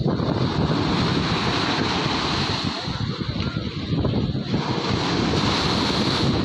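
Sea surf washing on a beach, with wind buffeting the microphone in a steady low rumble.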